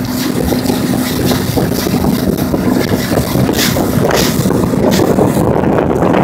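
Motorboat running at speed, its engine a steady hum beneath heavy wind buffeting the microphone in repeated gusts.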